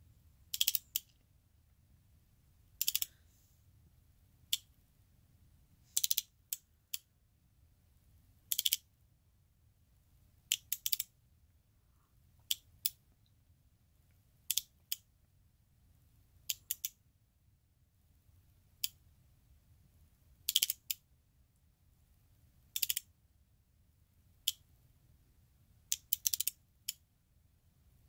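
Electromechanical flip-segment seven-segment display clicking as its coil-driven segments flip over: a short cluster of sharp clicks about every two seconds, each cluster one step of the two-digit count.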